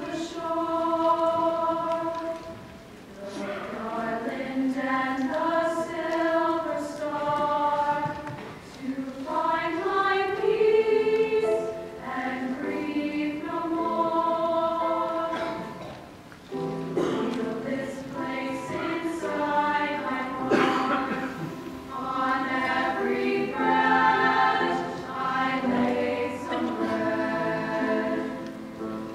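All-female choir singing in several parts with piano accompaniment, in sustained phrases that swell and ease off, with short breaths between phrases about three seconds in and again about halfway through.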